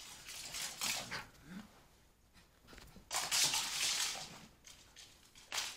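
A small terrier playing in a carpeted room: scuffling noises in two stretches, the second and louder one starting about three seconds in, with a brief faint whimper about one and a half seconds in.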